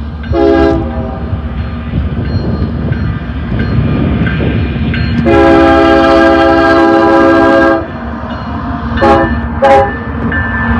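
Union Pacific diesel freight locomotive sounding its multi-note air horn for a grade crossing: a brief blast, a long blast of about two and a half seconds, then two short blasts near the end. The locomotives' diesel engines rumble underneath as the train approaches and pulls alongside.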